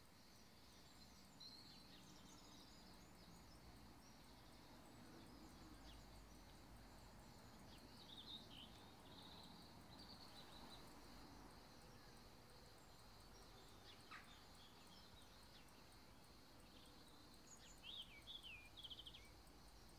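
Near silence: faint outdoor garden ambience with small birds chirping now and then, a quick run of chirps near the end, over a faint steady high-pitched hum.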